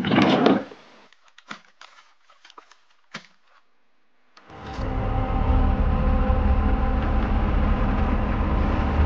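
A short loud burst of noise and a few faint scattered knocks, then, about four and a half seconds in, a steady low rumble of a running vehicle engine sets in and carries on.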